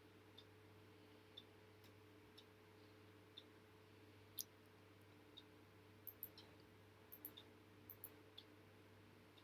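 Near silence: a faint steady hum with scattered light clicks from computer input, a few in quick succession about six to eight seconds in.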